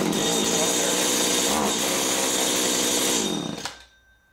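Stihl FS 75 trimmer's two-stroke engine running on stale fuel, its pitch falling as it slows and stops a little before the end. It had been hard to start, which the owner puts down to bad gas glazing the spark plug.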